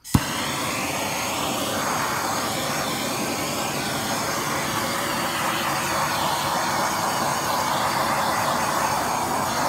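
Handheld gas blowtorch burning with a steady, even roaring hiss, after a sharp click right at the start.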